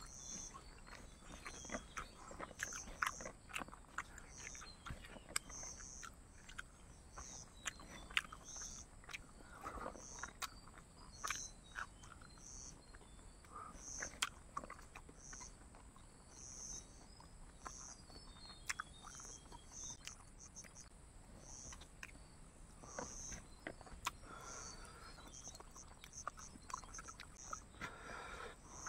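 Faint eating sounds of a man chewing pork and rice taken by hand: wet mouth clicks and lip smacks scattered throughout. Behind them runs a high chirp repeating about once a second over a steady high insect buzz.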